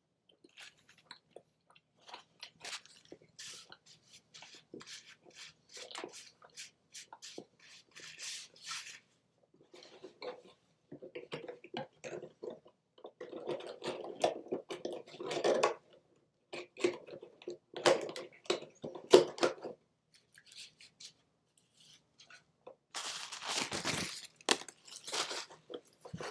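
A man chewing a beer-battered onion ring close to the microphone, with irregular crunching and crackling mouth sounds. A louder rustle comes near the end.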